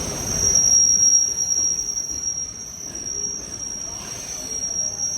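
A train moving through the station with a steady high-pitched squeal from its wheels, over a low rumble that swells about a second in.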